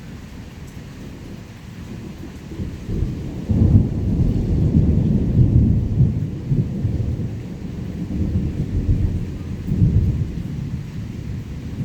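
Rolling thunder: a low rumble builds about three seconds in, is loudest for a few seconds, then swells again near the end, over steady rain.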